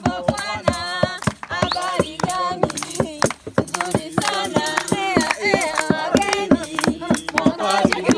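A group of voices singing together, with clapping in time at about three to four claps a second.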